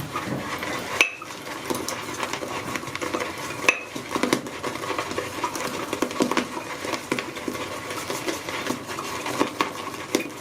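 Synthetic shaving brush swirled round a bowl, working shave soap into lather: a steady wet crackle of bristles against the bowl, with a couple of sharper clinks about a second in and near four seconds.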